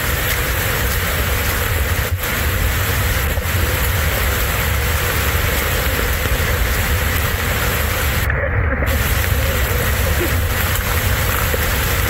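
Steady roar of heavy rushing water from a monsoon-swollen waterfall, loud and unbroken with a deep rumble underneath. The high hiss cuts out for a moment about eight seconds in.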